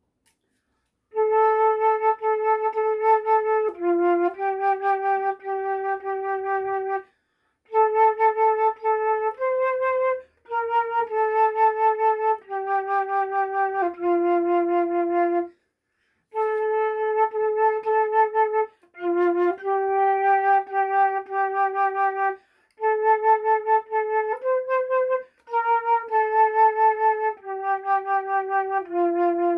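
Solo flute playing a slow melody alone, without accompaniment, one held note after another in phrases of several seconds with short pauses between them.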